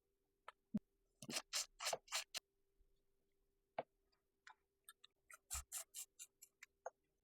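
Crawfish being shelled and eaten up close: short crackles, snaps and smacks of shell and mouth, in two quick clusters.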